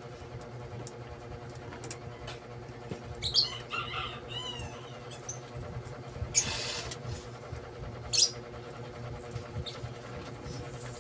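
Enamelled copper magnet wire being handled and pulled through the slots of an alternator stator during a hand rewind: scattered scrapes and clicks, with a short run of squeaky chirps about three and a half seconds in and a brief hissing scrape about six and a half seconds in, over a steady low hum.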